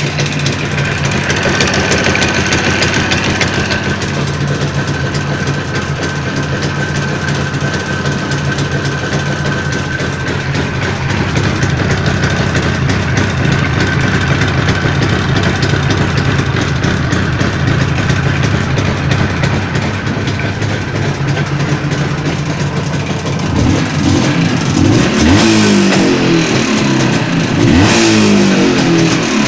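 Jawa 638 motorcycle's two-stroke twin engine idling steadily, then revved up and down several times in the last few seconds. The owner takes the knocking in it for a worn crankshaft and chain, with a tired cylinder-piston group.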